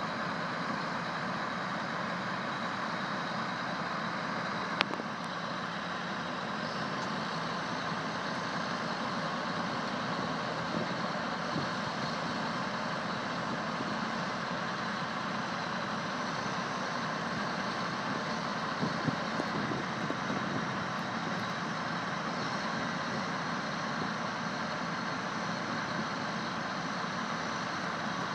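Heavy diesel engines running steadily as a tractor-drawn high-dump cart empties into a semi's silage trailer and is lowered again, with one sharp click about five seconds in.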